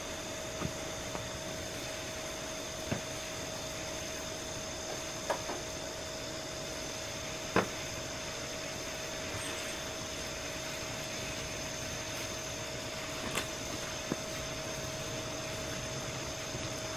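Molten lava cooling in spilled corn oil among broken glass, giving occasional sharp ticks and pops, about six of them, the loudest about halfway through. Under them runs a steady mechanical hum with a few high whining tones.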